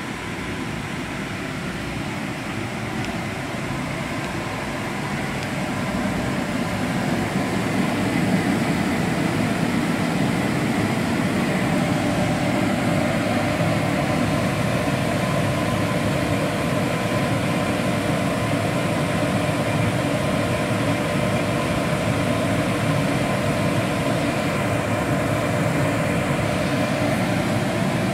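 Commercial coffee roaster and its smoke afterburner running: a steady rush of burner and fan noise with a few steady humming tones. It grows louder about seven seconds in, then holds steady.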